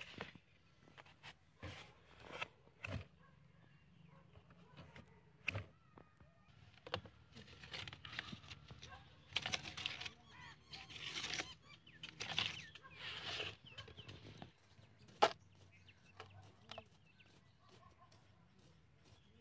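Handling noises of a cardboard shoebox trap: scattered taps and knocks, with a stretch of rustling and scraping about eight to fourteen seconds in as a hand slides over the paper-lined box floor, and a wooden stick scraping dry soil near the end. Birds call faintly in the background.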